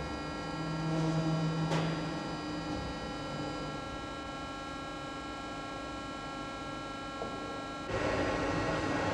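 Weingaertner Vario rotor lathe machining a progressive cavity pump rotor: a steady electric hum with several constant whining tones. There is a short click about two seconds in, and a louder rushing noise sets in abruptly near the end.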